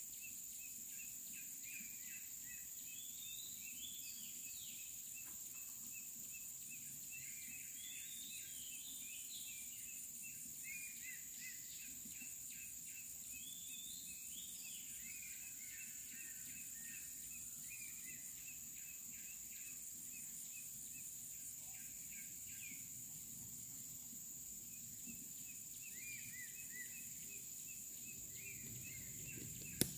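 Faint tropical forest ambience: a steady high insect drone with small birds chirping and calling on and off.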